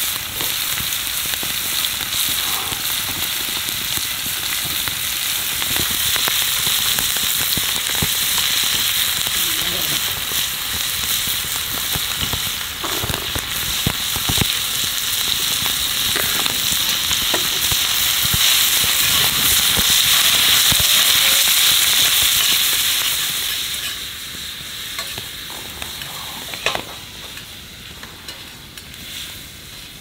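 Stir-fried vegetables, a heap of bean sprouts and shredded leek, sizzling steadily in a frying pan over a wood fire, with a few sharp clicks and taps. About three-quarters of the way through the sizzle grows clearly quieter.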